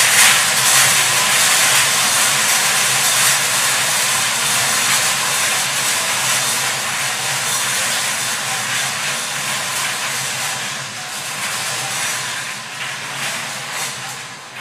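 Several wire-cage lottery drums being spun by hand, numbered balls clattering and rattling inside against the metal wires in a dense, steady rattle. It grows quieter and thins out over the last few seconds as the drums slow and the balls settle.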